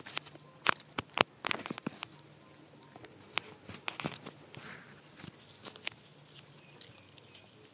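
Young macaque biting and chewing watermelon: a quick run of sharp, crunchy bites in the first two seconds, then a few scattered bites.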